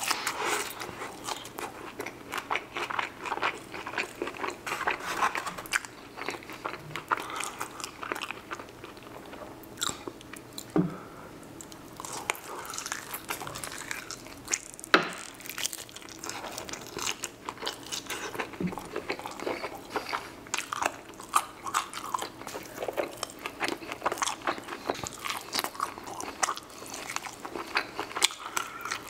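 Close-miked eating of fried chicken wings: crunchy bites and chewing with wet mouth sounds, irregular crackles all through.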